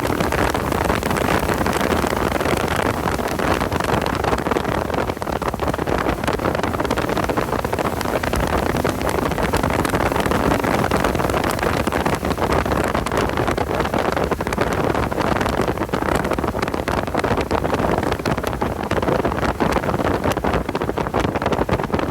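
Porsche 986 Boxster's flat-six engine running hard at track speed, mixed with heavy wind noise buffeting the microphone.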